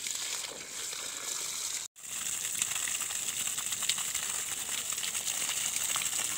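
Water from a hose spraying and splashing onto pea plants and soil, a steady hiss during irrigation, broken by a brief gap about two seconds in.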